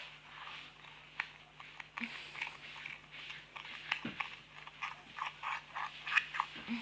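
Slime squished and worked by hand, a run of small wet clicks and pops, several a second, growing busier in the second half.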